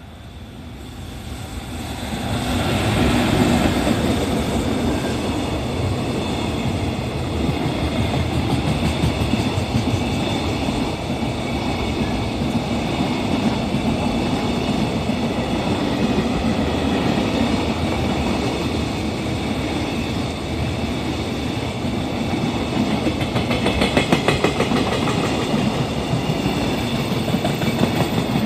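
Container freight train hauled by an EF210 electric locomotive passing at speed: the rumble swells over the first few seconds as the locomotive arrives, then the flatcars' wheels run on with a steady rumble and rail clatter, with a quick run of wheel clacks over rail joints near the end.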